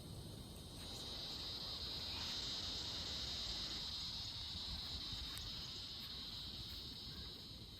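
Insects singing in a steady, high-pitched chorus that swells about a second in and eases off near the end, over a low background rumble.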